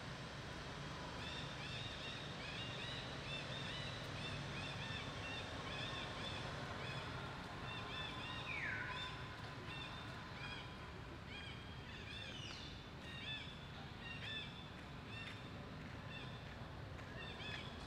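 Outdoor animal chirping: many short high chirps in quick, steady succession, with a falling squeal about eight and a half seconds in and a higher falling call about twelve and a half seconds in, over a steady low background rumble.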